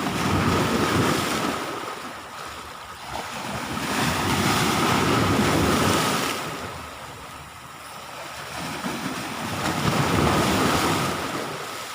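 Sea waves washing onto the shore, swelling and fading in three surges, with wind buffeting the microphone.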